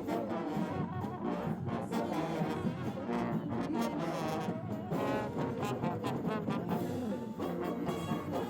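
Brass band playing, trombones and trumpets over a steady beat of drum strokes.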